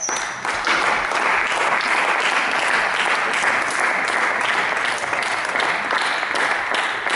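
Audience applauding steadily after the point is won, a dense patter of many hands clapping in a hall.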